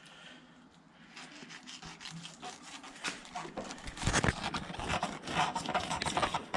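Filleting knife cutting and scraping along a fish on a cutting board: rapid short rasping strokes, faint at first and getting louder and busier from about three seconds in.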